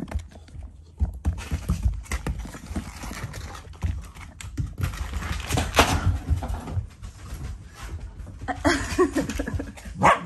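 A Shiba Inu and a black Labrador scuffling at play: a run of irregular thumps and knocks from paws and bodies on the floor, cushions and low table. There is a louder knock about six seconds in and another just before the end.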